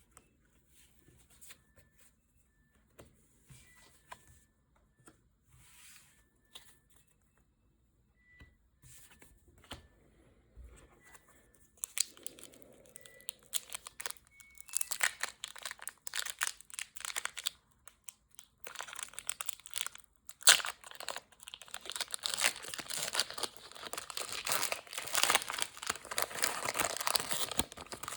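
Faint handling clicks, then from about twelve seconds in, plastic packaging being torn open and crinkled in dense crackling spells, with one sharp snap about twenty seconds in.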